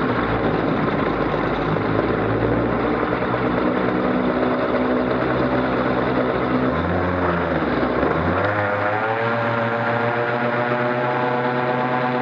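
Aeromarine Merlin Lite ultralight's engine and propeller running steadily in flight, with a rush of air. About seven seconds in, the engine note dips briefly and then climbs back up over about a second.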